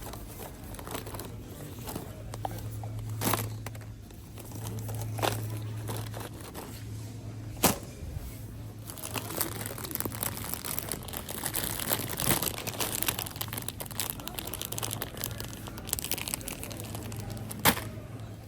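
Plastic snack packets crinkling as they are handled, with a few sharp knocks, over a steady low hum.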